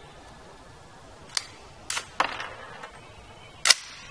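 Unsuppressed shots from an AR-15 in 300 Blackout firing 220 grain subsonic handloads: four sharp cracks, one about a second and a half in, two close together near two seconds, and the loudest near the end.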